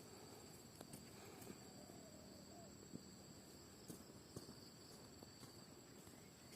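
Faint outdoor background of insects keeping up a steady high-pitched trill on two pitches, with a few soft scattered clicks.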